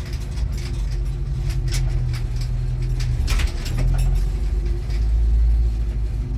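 A motor vehicle's engine running steadily, with scattered clicks and knocks over it.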